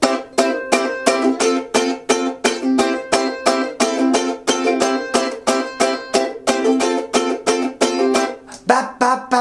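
G-Labo Black Beauty ukulele strummed in a chopped, on-the-beat cutting rhythm: short chord strums about three a second, each choked off straight after the hit, moving between C and F chords. The strumming stops near the end.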